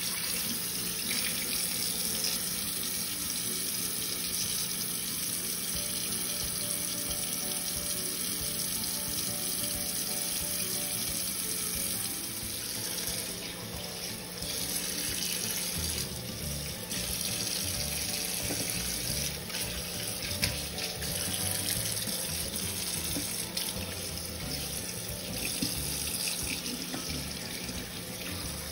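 Kitchen tap running steadily into a stainless steel sink, the stream splashing over whole mackerel as they are rinsed and cleaned by hand, with one sharp knock about two-thirds of the way in.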